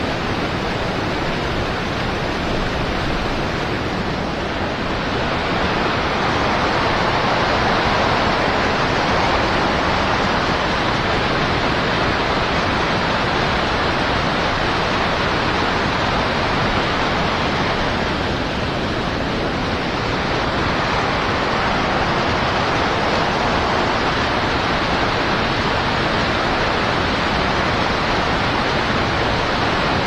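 Steady rush of flowing river water, an even noise that swells a little about five seconds in.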